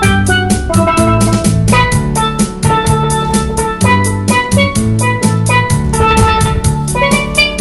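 Steel drum (steelpan) played with mallets: a quick, even run of ringing melodic notes, over a steady bass line and drum-kit beat.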